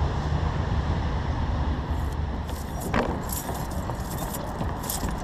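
A steady low rumble, with light metallic jingling and clicks starting about two seconds in.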